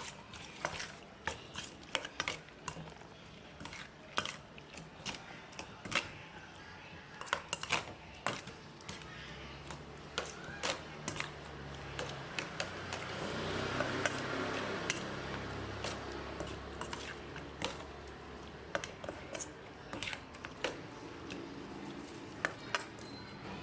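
Kitchen utensils clicking and clinking against dishes, many separate taps throughout. A steadier stretch of noise swells up in the middle.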